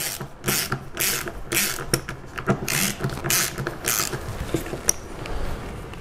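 Hand screwdriver with a Torx bit turning a small screw out of a plastic car door panel: a short scratchy rasp about twice a second as the tool is turned and reset.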